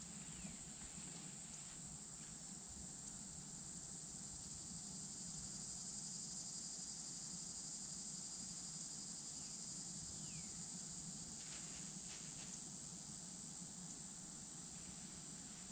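A steady, high-pitched chorus of insects trilling without a break.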